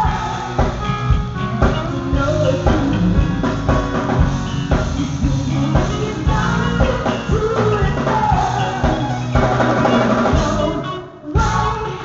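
Live band playing: a woman singing lead into a microphone with backing singers, over electric guitar, bass and a drum kit. The music drops out briefly near the end before carrying on.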